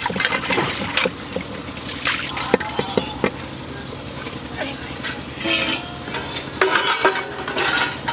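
Metal dishes being washed by hand in a basin of water: splashing and stirring with steel plates and a metal pot clinking and knocking together, then a louder clatter as the plates are stacked near the end.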